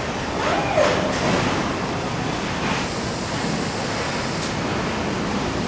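Steady din of a truck assembly plant floor: a broad hiss of machinery and air, with a brief rising-and-falling whine and a sharp click about a second in.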